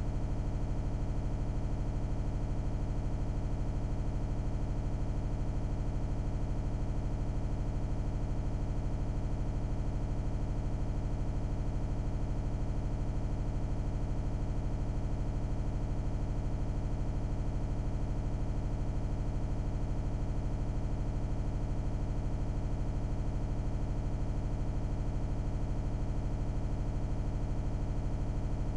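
A steady, unchanging electronic buzz with a strong low hum, holding the same pitch and loudness throughout.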